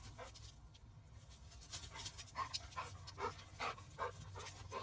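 A dog panting faintly in short, quick breaths, the breaths coming more steadily after the first second or so.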